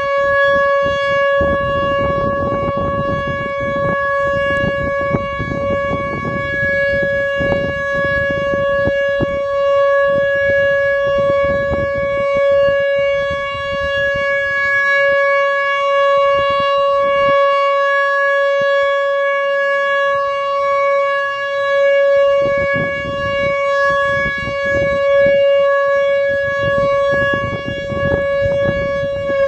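Whelen WPS 2904 electronic outdoor warning siren sounding its steady 'Alert' tone: one unwavering pitch with strong overtones, heard over an uneven low rumble.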